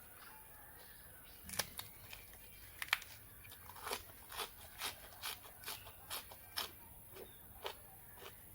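Close-miked crunchy eating: a couple of sharp crunching bites, then steady chewing at about two chews a second.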